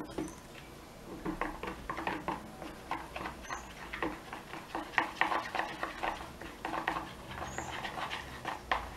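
Wooden popsicle stick stirring white glue and toothpaste in a plastic bowl, scraping and clicking against the bowl in quick, irregular strokes that start about a second in.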